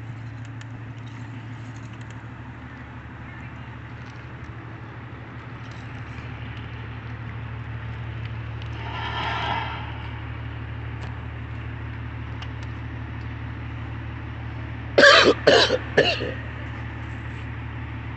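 Fire trucks idling with a steady low hum, and three quick, loud coughs about fifteen seconds in.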